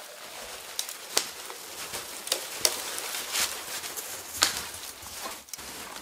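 Footsteps crunching in crusty snow with irregular snaps and cracks of twigs and brush as a long dead pole is carried through the woods; the sharpest crack comes about four and a half seconds in.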